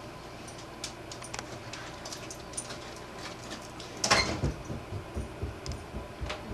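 Scattered small clicks and clinks at a dinner table over a low steady hum, then a loud knock about four seconds in followed by a run of dull, irregular thumps and rustles.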